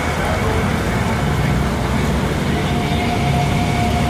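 A car ferry's engines running steadily under way, heard from the open deck. A continuous low rumble carries a faint steady whine.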